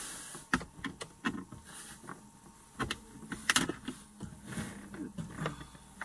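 Scattered light clicks and scrapes of a small flathead screwdriver bit prying at the plastic screw-hole covers on the back of a steering wheel, with the sharpest clicks about half a second, three and a half seconds and five seconds in.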